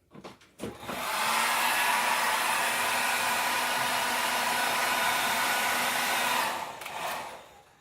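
Repaired Felix Norma 1600 W hair dryer switched on, its fan blowing with a steady rushing noise and a faint hum for about six seconds, then switched off and winding down. It runs again: the no-start fault is fixed.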